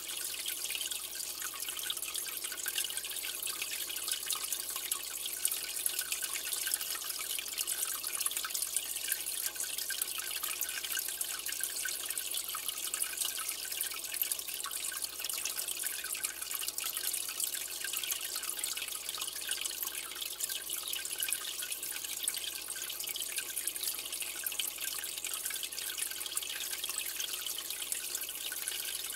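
Steady splashing and trickling of moving aquarium water, with a dense fine crackle of small drops.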